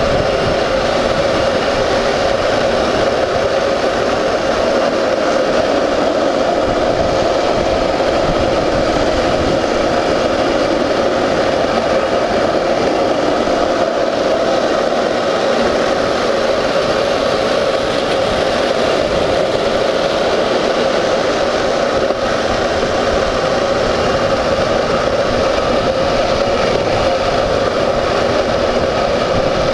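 Steel ball-bearing wheels of a rolimã gravity cart rolling fast down an asphalt road, a loud, steady rolling noise.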